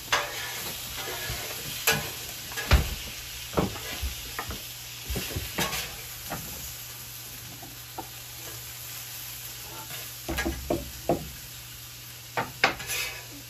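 Chicken slices and tater tots sizzling on a Blackstone steel flat-top griddle, with a metal spatula scraping and clacking against the cooktop at irregular moments as the chicken is pushed around; the sharpest clack comes nearly three seconds in.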